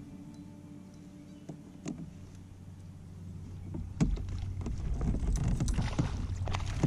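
Clicks and knocks of gear being handled in a kayak over a low steady rumble. The knocks start and grow busier about four seconds in.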